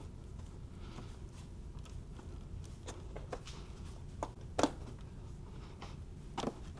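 Hands working an intake hose and metal spring hose clamp back onto a throttle body: soft rubber and plastic handling noises with a few sharp clicks, the loudest about four and a half seconds in, over a low steady hum.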